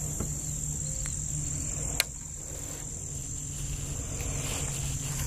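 Steady high-pitched insect chorus, with one sharp click about two seconds in.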